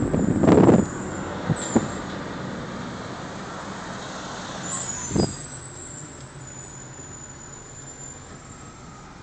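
Car driving, with steady road and engine noise. A loud rush of noise comes about half a second in, two short knocks follow soon after, and another knock comes about five seconds in; the steady noise then slowly fades.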